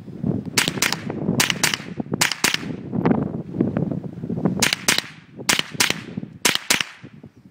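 Rifle gunshots fired in quick pairs (double taps): six pairs, with a short pause after the third pair.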